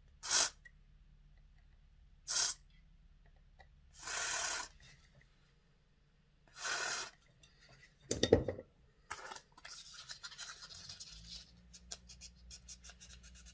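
An aerosol can of contact cleaner sprayed through a straw nozzle onto small model-locomotive motor parts in four short hisses, the third the longest. About eight seconds in comes a sharp knock, then small clicks and rubbing as fingers handle the tiny parts.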